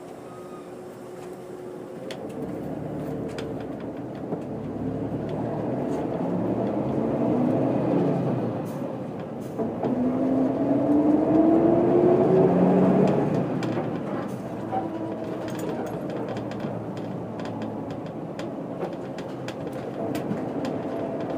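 Setra S 315 UL bus engine heard from inside the cabin, accelerating: the engine note rises, dips briefly about nine and a half seconds in as a gear is changed on the manual gearbox, rises again, then settles into steadier running.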